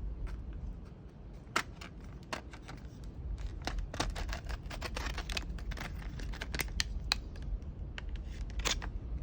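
Irregular sharp clicks and light rattles of a small pair of Milwaukee adjustable wire strippers being handled and its packaging being opened.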